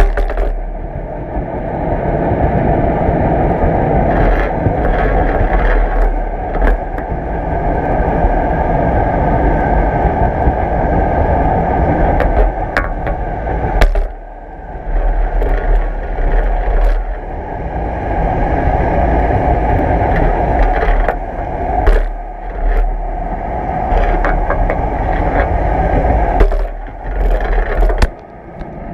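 Turbulent tailrace water heard underwater through a GoPro housing: a deep, steady rushing, with the camera pole scraping and knocking against the gate slot now and then.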